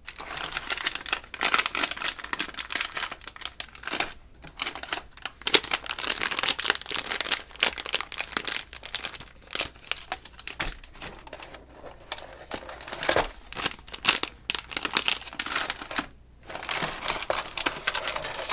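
Foil blind bag crinkling as it is handled and squeezed, in irregular bursts with brief pauses.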